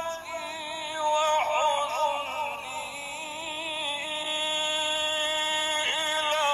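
A man's voice chanting Quran recitation in a slow melodic style: long held notes with a quavering, ornamented pitch that slides between notes.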